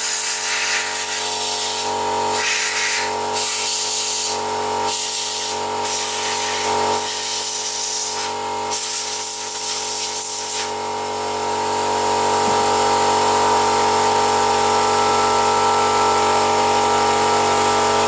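Compressed-air blow gun hissing in short blasts, then one long continuous blast from about eleven seconds in, blowing dirt out of a split chainsaw air filter. A steady hum runs underneath.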